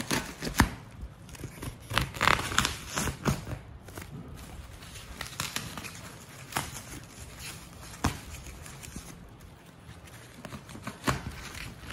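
A small knife slitting the plastic-film and newspaper wrapping of a parcel, with the wrap tearing and crinkling in irregular rustles and a few sharp ticks.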